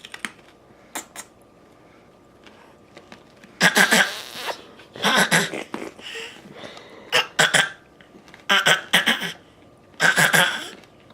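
A toddler making a string of deliberate fake coughs, about five or six short rough bursts a second or so apart starting a few seconds in, used as a kind of play-talk rather than a real cough.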